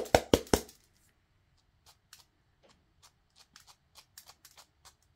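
A few sharp knocks right at the start, then a scatter of light, irregular ticks as loose fake sprinkles are pushed around and drop onto a metal baking sheet.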